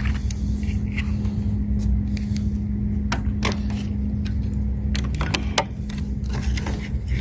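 A few sharp clicks and knocks of jumper-cable clamps being handled and clipped onto metal, over a steady low hum.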